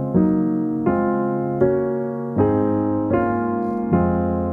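Background music: piano chords struck in a steady rhythm, a new chord about every three-quarters of a second.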